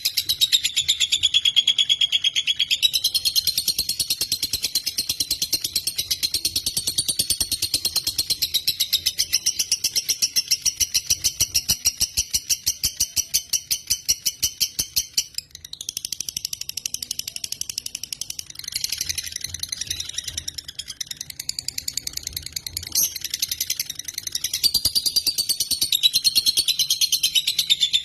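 Lovebird singing a long, nonstop, rapid chattering trill of high chirps, the style bird-keepers call 'konslet'. It breaks off briefly about halfway, turns rougher and less even for several seconds, then the fast, even run returns.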